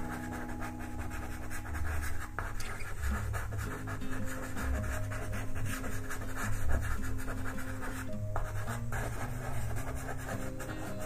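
Soft pastel scratching and rubbing across textured pastel paper as colour is worked in, with fine rapid strokes. Background music with held chords plays underneath.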